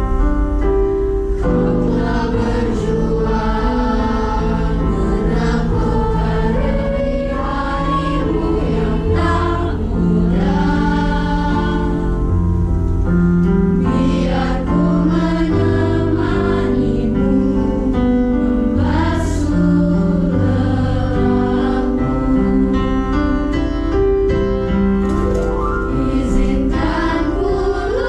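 Junior high school choir singing in parts, accompanied by an electronic keyboard and a guitar whose low notes change every second or two beneath the voices.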